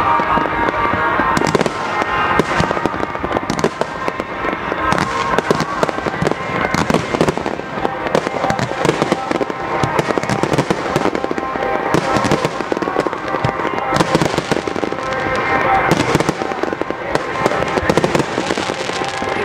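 Aerial fireworks display: a dense, continuous run of shell bursts, bangs and crackles, many overlapping.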